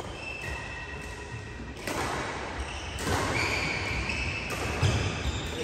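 Badminton shoes squeaking on the synthetic court mat, several held squeaks, with a few sharp knocks of rackets hitting the shuttlecock, the loudest about three and five seconds in.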